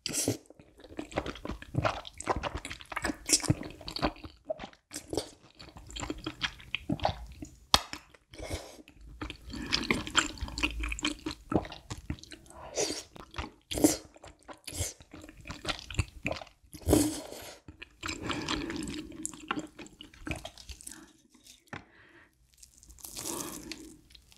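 Close-miked slurping and chewing of thick udon noodles in a creamy spicy sauce: an irregular string of short, wet mouth sounds.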